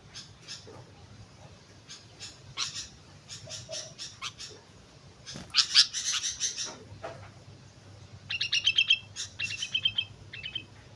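Sooty-headed bulbul calling: scattered short chirps with a louder cluster about halfway through, then a quick run of rapid repeated notes near the end.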